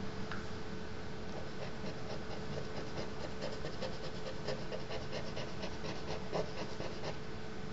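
Thin wooden stick dipped in ink scratching across paper in quick, rapid strokes, starting about a second and a half in, over a faint steady hum.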